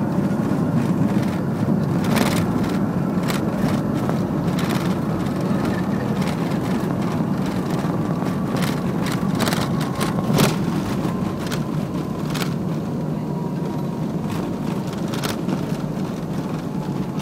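Cabin noise inside a BAe 146 jetliner rolling on the runway after landing: a steady deep rumble from its four turbofan engines and the roll, a faint whine that slowly falls in pitch as the engines wind down, and frequent rattles and knocks from the cabin fittings, one louder bump about ten seconds in.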